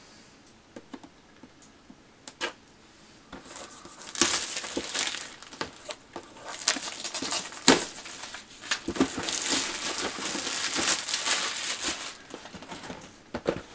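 Plastic shrink wrap being torn and crinkled off a model kit box: a few faint clicks at first, then about four seconds in a long stretch of loud crackling and tearing with sharper cracks, dying down near the end.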